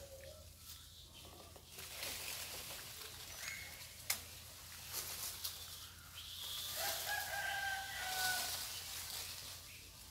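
A rooster crowing once in the distance, a long held call of about two seconds near the end, over a steady high hiss. A single sharp click comes about four seconds in.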